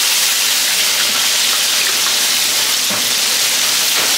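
Whole fish deep-frying in hot oil in a large wok (karahi), a steady, loud sizzle like heavy rain.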